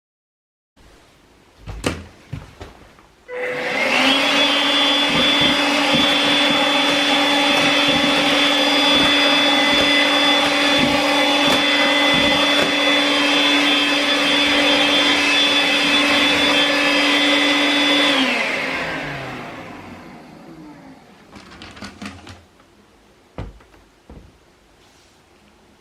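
Makita cordless paper-pack vacuum cleaner, switched on after a few handling knocks, running steadily with a high motor whine for about fifteen seconds, then switched off and winding down. A few more knocks near the end.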